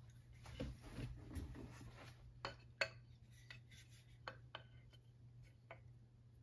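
Hand tools being handled: soft rustling, then a series of sharp, light metallic clinks as a steel chisel and a wooden mallet are picked up, the loudest about three seconds in.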